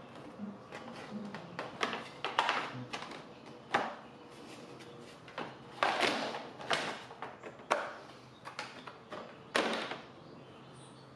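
The plastic upper air deflector of a 2018 Honda Gold Wing being pried off by hand: its retaining clips snap loose and the panel clacks against the fairing. It makes a string of irregular sharp clicks and snaps, with one of the loudest near the end.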